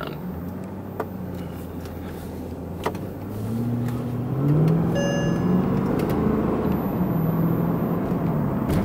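2009 Mercedes-Benz S63 AMG's 6.2-litre V8 heard from inside the cabin with the windows up, accelerating: the engine note climbs in pitch and gets louder from about three and a half seconds in, over steady road noise. A brief electronic tone sounds about five seconds in.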